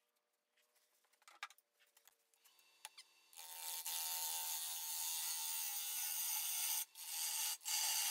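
Bowl gouge cutting into a spalted sugar maple bowl spinning on a wood lathe: a steady noise of shavings being sheared off, starting about three seconds in, with two brief breaks near the end as the tool is eased off. Before the cut starts there is near silence with a few faint ticks.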